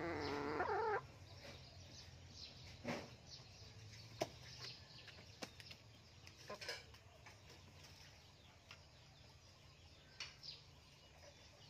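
A chicken's wavering call, about a second long, at the start, followed by scattered faint clicks and taps.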